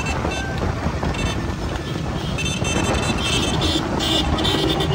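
Motorcycle engines running close by at speed, with wind on the microphone. Short high-pitched toots repeat over them, coming more often and louder in the second half.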